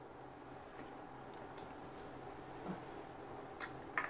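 Faint, irregular small clicks and ticks of a precision screwdriver working at the screws of a 2.5-inch laptop hard drive's metal casing. There are a few scattered clicks, loudest a little after a second and a half and again near the end.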